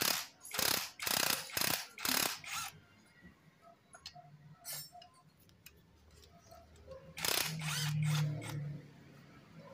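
Ratchet wrench working in short strokes on the small screws holding a motorcycle's stator, with about five quick strokes in the first few seconds. Lighter scattered clicks follow, then a longer rasping stretch near the end.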